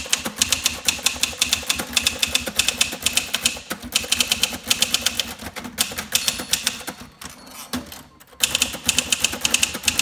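Fast typing on a 1971 Sears Newport manual typewriter: a rapid run of sharp keystroke clacks as the typebars strike the paper on the platen, with a short lull about seven seconds in before the typing picks up again.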